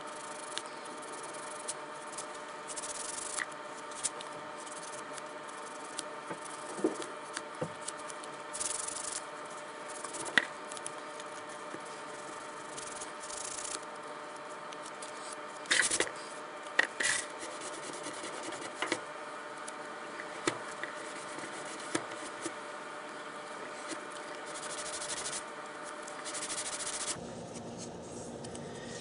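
A flexible sanding stick rubbed back and forth along the cut edge of a plastic template, rounding it off, with a few sharper clicks and taps in the middle. A steady hum runs underneath and stops near the end.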